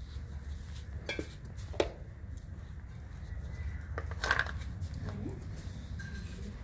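A handful of light knocks and clinks from a steel bowl and a plastic jar being knocked about, the sharpest about two seconds in and a cluster a little past four seconds, over a steady low hum.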